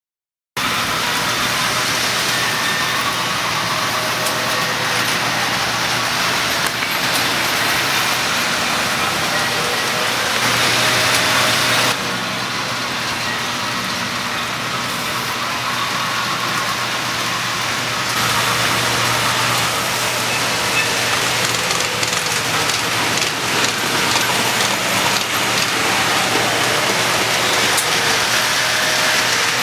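Many toy trains running on a large model railroad layout: a steady clatter of wheels on track and whirring of small motors over a constant low hum. It starts about half a second in and dips a little in loudness for a few seconds midway.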